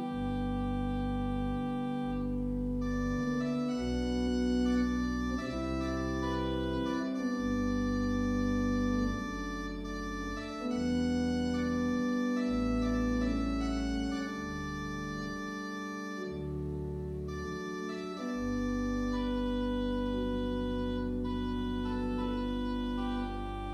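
Church organ playing a postlude: sustained chords that move from one to the next over deep bass notes that drop out and come back in.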